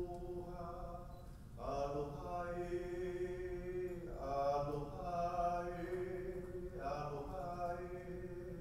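A single voice chanting on long held notes, in phrases that each start with a brief rise in pitch and then hold steady; new phrases begin about every two to three seconds.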